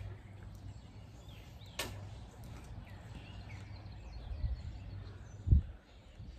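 Outdoor ambience: a steady low hum with faint bird chirps. A sharp click comes about two seconds in, and a dull low thump about five and a half seconds in.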